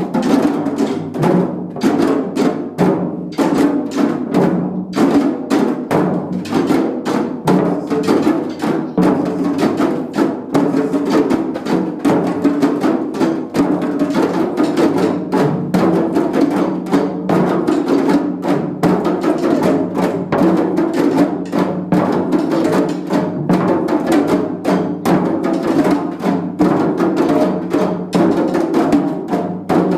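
Djembe and dundun drums played together in a steady, fast, driving rhythm with many strikes a second. They start straight after a count-in of four.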